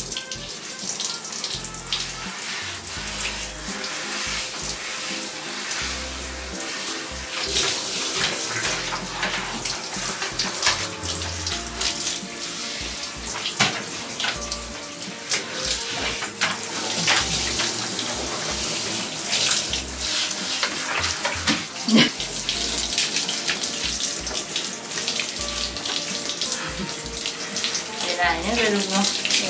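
Water spraying from a hand-held shower head onto a Saint Bernard's thick wet coat as the dog is rinsed.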